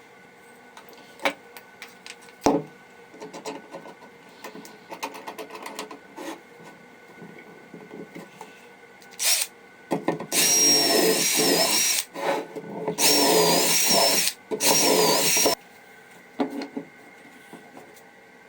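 Knocks and clicks of parts being handled, then a handheld power tool running in three bursts of a few seconds each, with a wavering high whine over the motor noise.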